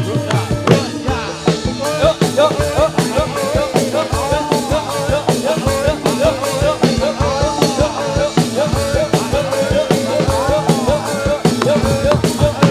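Jathilan dance accompaniment in the gamelan style: quick, steady drum strokes under a wavering melody line that bends up and down.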